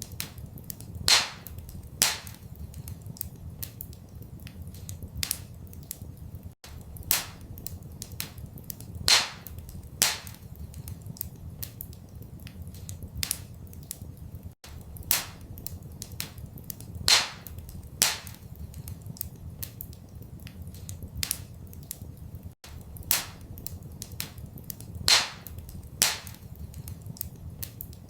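Wood fire in a fireplace crackling, with frequent small pops and a few louder snaps, over a steady low rumble. The same pattern of pops comes round again about every eight seconds.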